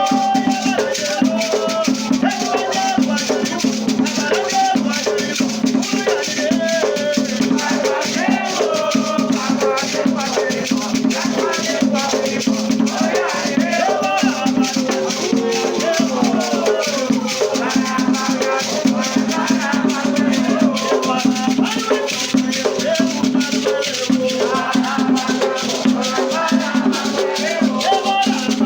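Afro-Brazilian batuque ritual music: voices singing a chant over a fast, steady shaken rattle, with drums underneath.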